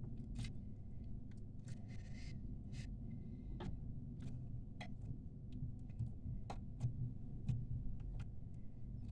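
Homemade slime being handled and squeezed: irregular small clicks and pops, roughly one or two a second, over a steady low hum.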